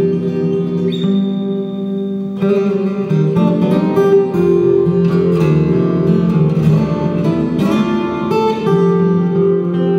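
Solo acoustic guitar played live through a PA, a melody over moving bass notes with some strummed chords.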